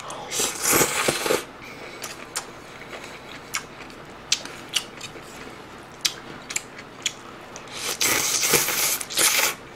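Close-miked eating sounds: a slurp of glass noodles, then chewing with wet mouth clicks, and a longer slurp from the dish of soup about eight seconds in.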